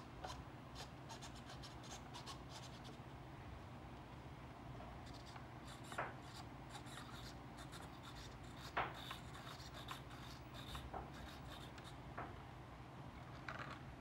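Quiet handling sounds of a foam RC airplane and its transmitter being moved about on a wooden table: faint rubbing and scraping with scattered light clicks over a steady low room hum. Two sharper knocks come about six and nine seconds in.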